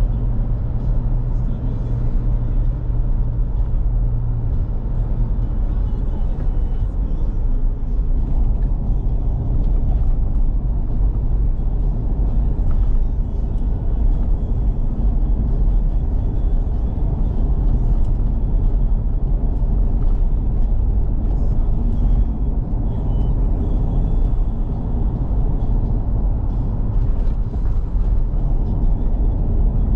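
Steady cabin noise inside a Toyota Fortuner SUV cruising on a highway: a low, even rumble of tyres on the road and the engine running at a constant speed.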